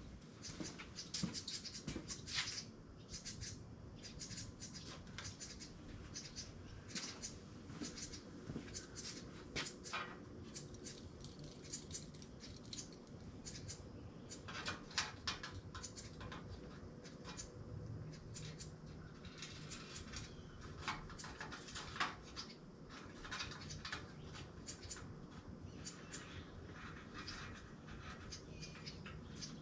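Faint scattered clicks, taps and light scraping of small metal parts and a clamp being handled and fitted against a bicycle fender, over a faint steady low hum.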